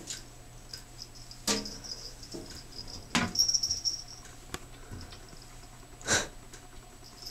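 Two cats playing in an empty enamel bathtub: scattered short knocks and scuffs of paws and bodies against the tub. Three louder ones come about a second and a half, three and six seconds in, over a faint steady hiss.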